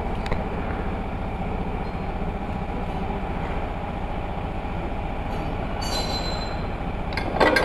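A steady low mechanical drone of a running motor, with light metallic ticks of hand tools on a motorcycle engine, and a few sharp metal clanks near the end.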